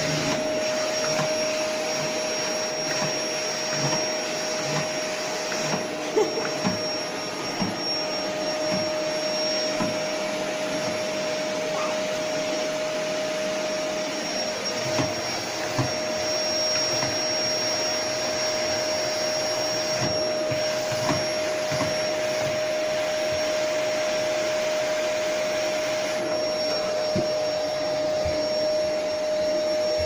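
Bagless cyclonic canister vacuum cleaner running steadily, a constant whine over its rushing suction hiss, with occasional light knocks and bumps.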